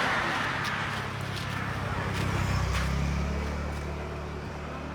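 A motor vehicle's engine running at low revs; its pitch drops about two and a half seconds in and it slowly fades.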